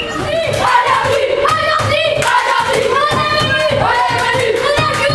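A group of boys chanting together in a rhythmic, sing-song unison, with regular hand claps, in a tiled changing room.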